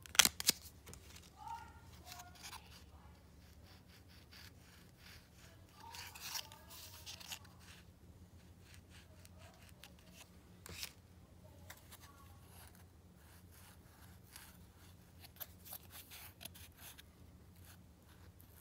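Coins in plastic flips and cardboard 2x2 holders being handled: scattered clicks and scratchy rustles of plastic and card rubbing between fingers, the sharpest clicks just after the start, over a low steady hum.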